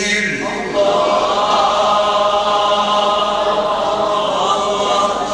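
A male Quran reciter's long chanted note ends in the first half second. Then many men in the audience call out together in a sustained chorus of voices.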